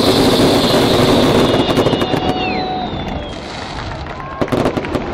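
Stadium fireworks going off: a loud hissing spray with whistling tones that slide down in pitch, turning to crackling about two seconds in, with a few sharp bangs near the end.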